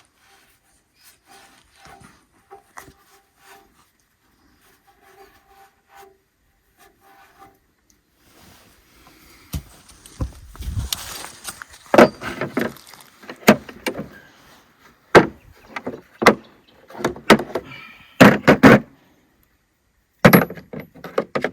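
A few faint short squeaks and ticks, then from about halfway a run of loud, irregular knocks and clunks, like hard objects being handled and set down.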